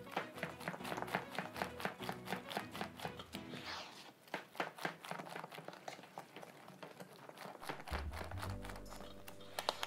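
Wire hand whisk beating thick chocolate cake batter in a stainless steel bowl, the wires clicking and scraping against the metal in a steady rhythm of about four strokes a second.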